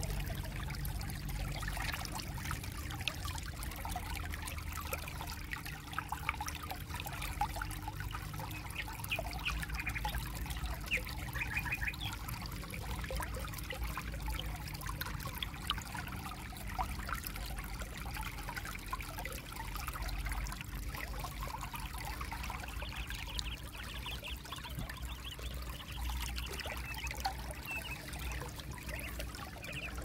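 Shallow creek water trickling and babbling over pebbles, a steady close crackle of small ripples with a low rumble underneath.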